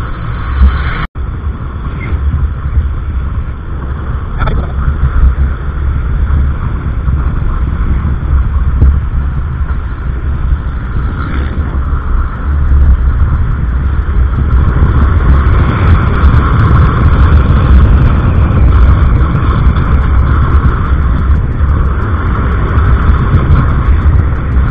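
Motor scooter riding on a road, its engine and tyre noise under heavy wind buffeting on a helmet-mounted microphone, with a steady low rumble. The sound cuts out for an instant about a second in.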